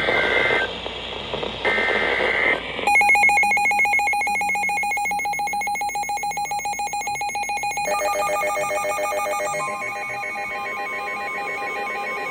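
Emergency Alert System alert: two short, buzzy digital header bursts, then an electronic attention tone from about three seconds in that pulses rapidly. The tone changes about eight seconds in, and a second, higher tone joins near ten seconds.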